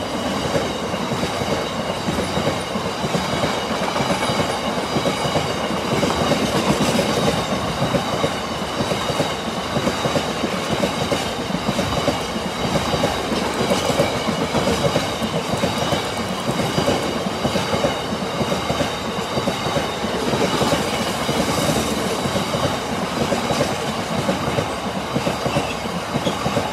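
A freight train of bogie oil tank wagons rolling past at speed, the wheels clattering continuously over the rails, with a steady high-pitched whine over the rumble.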